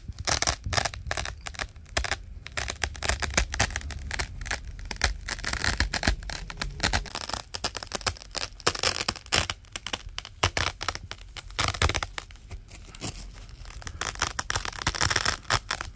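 Velcro hook-and-loop fastener ripping and crunching over and over, a dense crackle of many tiny snaps in quick runs with brief pauses between them.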